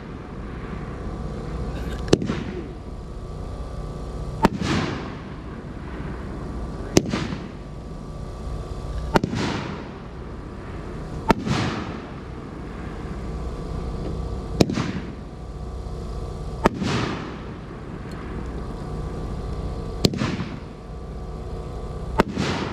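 Mad Ox 'Big Jon' 500-gram six-shot firework cake firing: a sharp report every two to three seconds, each trailing off in a brief echo.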